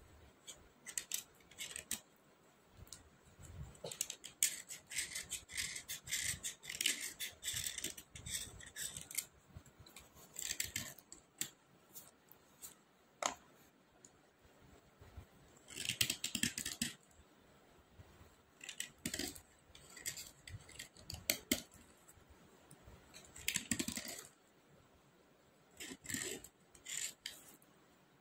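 Dry natural-stone slate pencils being scraped and rubbed together by hand and clicking against the other sticks in a box, in irregular scratchy bursts with short pauses between.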